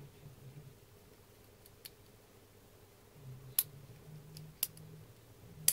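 A few faint, sharp metallic clicks, spaced irregularly, as a lock pick works the pins of a Draper Expert six-pin padlock, mostly spool pins, held under two tension wrenches.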